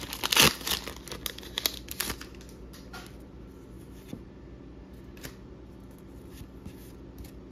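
Foil booster-pack wrapper crinkling and tearing open by hand for the first two seconds. After that it goes quieter, with a few faint taps and rustles as the trading cards are handled.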